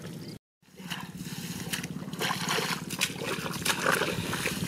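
Hands working through wet mud and rice straw: squelching, trickling water and small rustles and clicks over a steady low drone. The sound cuts out completely for a moment just after the start.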